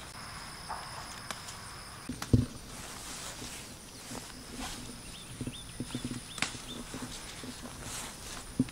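Herb stems being picked by hand in grass: leaves rustling and stems snapping, with scattered footsteps and a thump about two seconds in as the bunch goes into a plastic tub. Insects buzz faintly in the background.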